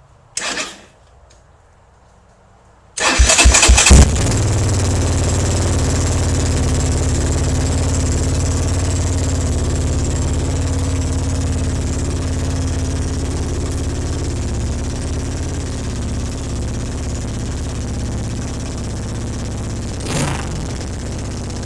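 1983 Honda ATC 200E Big Red's air-cooled four-stroke single-cylinder engine starting about three seconds in, then idling steadily through an aftermarket CRF230 exhaust, with a brief swell near the end.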